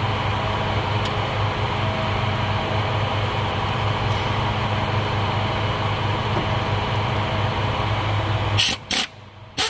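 Steady machine drone with a strong low hum, cutting off suddenly near the end and followed by two or three sharp clicks.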